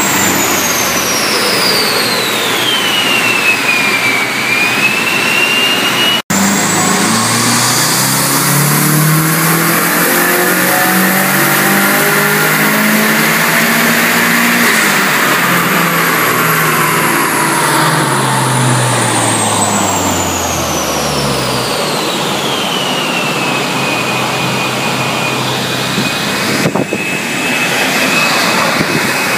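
Turbocharged Mazda FE3 2.0-litre DOHC four-cylinder in a front-wheel-drive MX-6, running on E85 at 20 psi of boost, making a full-throttle pull on a chassis dyno. The engine note climbs steadily in pitch, then falls away as it backs off, with a high whine gliding along with it. The whine settles to a steady pitch near the end.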